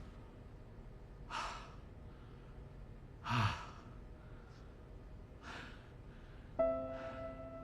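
A person sighing: three breathy exhales about two seconds apart, the middle one voiced and the loudest. Soft music with held notes comes in near the end.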